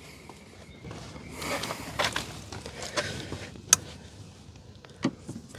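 Hand-work noises from removing the screws of the fuel pump access panel under the rear seat: scraping and rustling with scattered light clicks, and one sharper click a little past the middle.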